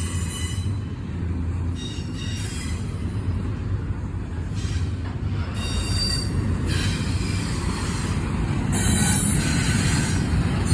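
CSX intermodal freight cars rolling past: a steady rumble of steel wheels on rail, with high-pitched wheel squeals coming and going. It gets a little louder in the last few seconds.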